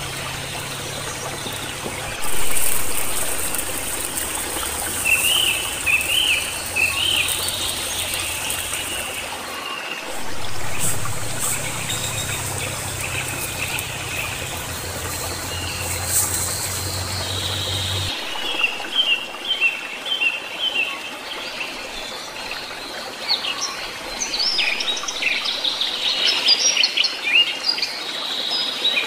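Small birds chirping in several short runs of high calls, thickest near the end, over a steady watery hiss.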